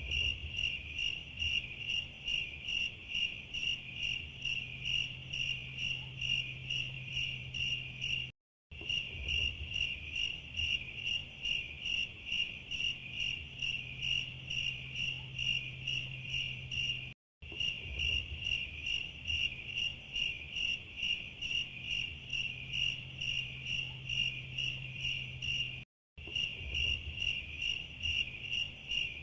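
Cricket chirping in a steady string, about three to four chirps a second: the stock 'awkward silence' sound effect. The chirping cuts out briefly about every nine seconds, where the recording loops.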